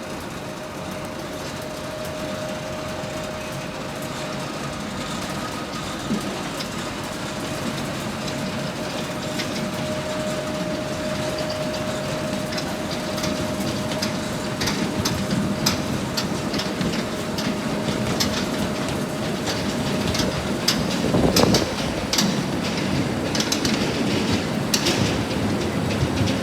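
Potato harvesting and store-loading machinery running: a steady mechanical rattle with a thin whine that fades out about twenty seconds in, and many sharp clicks and knocks through the second half.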